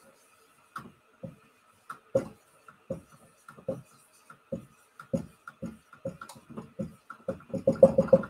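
Dry-erase marker drawing on a whiteboard: short squeaks and taps about every half second, crowding into a quick flurry near the end as small dots are dabbed on.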